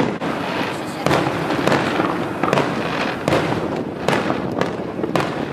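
Aerial fireworks going off: sharp bangs, roughly one or two a second, over a continuous crackle.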